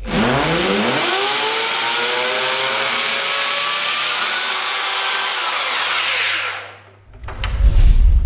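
ROK 1000 W hammer action drill switched on, its motor whine rising as it spins up, running steady for about five seconds, then spinning down. Another loud burst of drill noise starts near the end.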